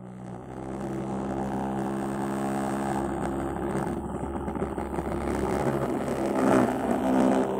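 Small vibration motor of a capacitor-powered toy helicopter running, a steady low buzzing hum that starts at once and grows slightly louder as the wire-legged body shakes on cardboard.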